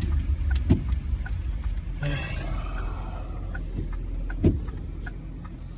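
Steady low rumble of a vehicle idling, heard from inside the cab. A couple of dull thumps and a brief hissing swell about two seconds in.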